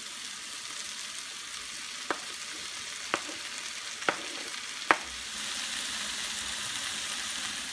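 Diced vegetables sizzling in a frying pan as chopped tomatoes are scraped in with a wooden spoon, with four sharp knocks of the spoon about a second apart; the sizzle grows a little louder just past halfway.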